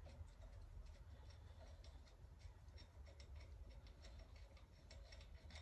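Near silence with a low hum and faint, irregular small metal clicks of a wrench working on the bolts of a bracket on an old engine block.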